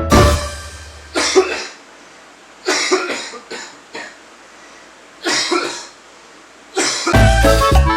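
A person coughing in several short, separate fits, with quiet gaps between them. Music plays at the start and comes back near the end.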